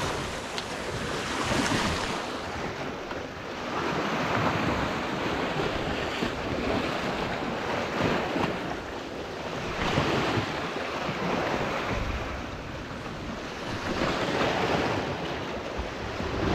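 Sea waves washing against the rocks, swelling and fading every few seconds, with wind buffeting the microphone.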